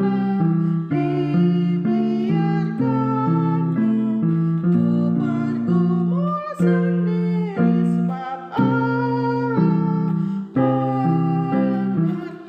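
A worship song accompanied by strummed guitar chords, with a woman singing the melody in a husky voice.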